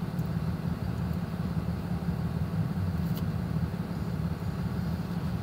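Truck engine idling, a steady low hum heard from inside the cab, with a faint tick about three seconds in.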